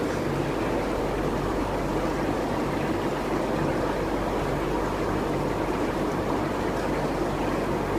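Steady noise of aquarium pumps and filtration, water moving with an unbroken low electrical hum beneath it.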